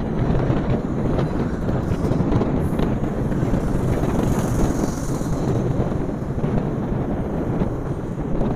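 Steady wind rumble buffeting the microphone of a rider moving at road speed on an electric scooter, whose motor adds little sound of its own.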